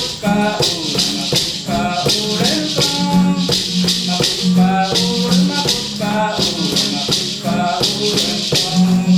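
Music with a steady shaken rattle or maraca rhythm under a wavering melody line and a recurring low sustained note.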